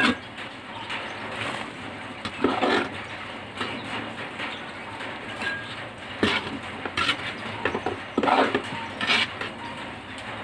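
Irregular bursts of rustling and scraping from soil and a woven plastic sack as a bottle bamboo stem is handled and pressed into the potting mix, over a steady background hiss.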